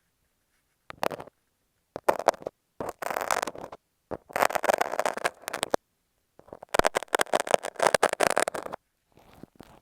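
A utility knife and masking tape worked right against an earphone microphone, making close, crackly scraping and rustling with quick clicks. The sound comes in several bursts of a second or so, with short silences between them.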